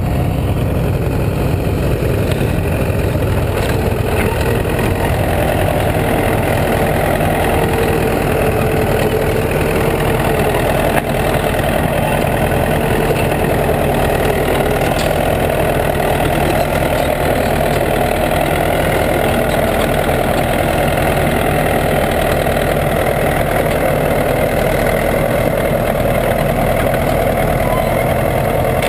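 Bulldozer's diesel engine running steadily at a low, even speed, with a deep rumble.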